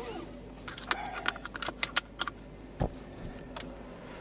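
Sharp light clicks and clinks of small hard objects being handled: a quick run of them in the first half, then two more single clicks, over a steady low hum.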